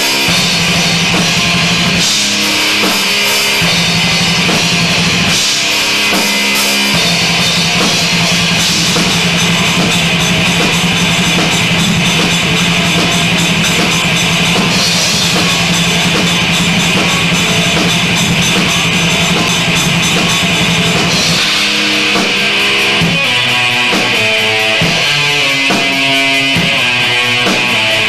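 Metal song played on a drum kit and guitar together, loud and continuous, with heavy cymbal wash. About three-quarters of the way through, the part changes to a choppier, stop-start riff.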